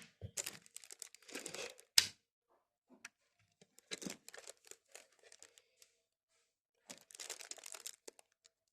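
Handling noise as a handheld digital multimeter and its power lead are handled: scattered rustling and scraping with a few small clicks, and one sharp click about two seconds in.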